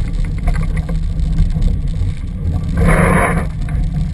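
Steady low rumble of wind buffeting the microphone, with a brief burst of hiss about three seconds in.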